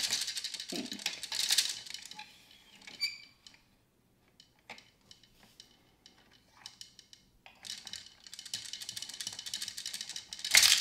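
Plastic gears of a Downspin game unit clicking rapidly as a key turns them, in two spells: for about the first two seconds and again over the last three. A single short clink about three seconds in.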